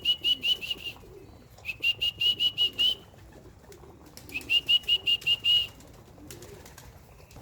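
A songbird singing three phrases, each a quick run of about eight to ten clear, slightly rising whistled notes, with pauses between the phrases.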